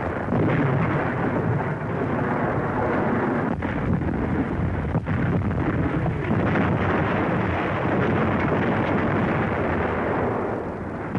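Continuous rumble of battle sound effects on an old newsreel soundtrack: artillery and gunfire running together into one steady din, with no single shot standing out.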